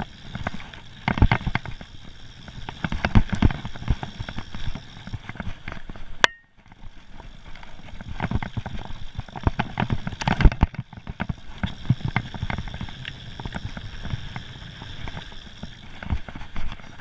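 Mountain bike ridden fast down a dirt and gravel forest trail, with tyre noise and irregular rattles and knocks as the bike hits bumps, picked up by a camera mounted on the rider or bike. The sound briefly cuts out about six seconds in.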